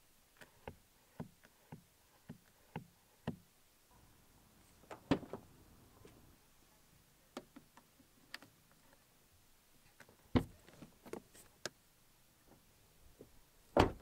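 Hyundai i30 rear door: the inside door handle pulled over and over, clicking about twice a second without releasing the door because the child safety lock is on. Later a few light clicks as the child-lock lever in the door edge is turned with the key, and heavier door clunks about five seconds in, about ten seconds in and near the end.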